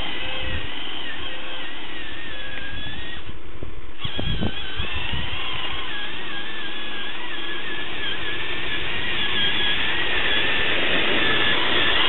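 Small electric drive motors and gearbox of a radio-controlled toy bulldozer whining as it drives, the pitch wavering with speed. The whine cuts out for a moment a little past three seconds in, then starts again with a knock.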